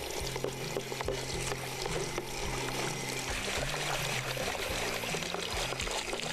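Tap water running and splashing into a dog's bowl as it is rinsed and refilled at an outdoor sink, with background music.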